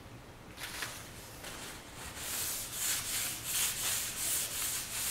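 Porter-Cable 3-amp oscillating multi-tool's blade rasping against wood. It is light at first, then from about two seconds in it swells and fades in repeated strokes, roughly one every 0.7 seconds, as the blade is worked into the cut.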